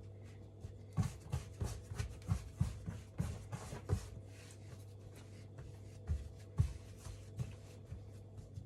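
Hands kneading scone dough on a floured worktop: soft, irregular thumps and rubbing, a quick run of about three a second near the start, then a pause and a few more.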